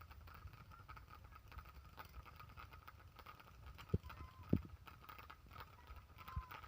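A lull in a fireworks display: faint steady background with two dull thumps about four seconds in, half a second apart, from distant firework bursts.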